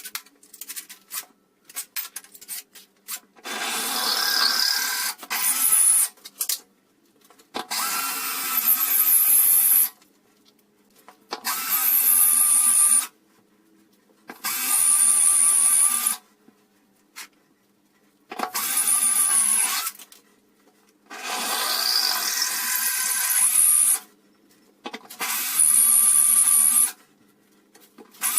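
A few light clicks, then an electric drill run in about eight bursts of two to three seconds each, with short pauses between, its high whine changing pitch from burst to burst.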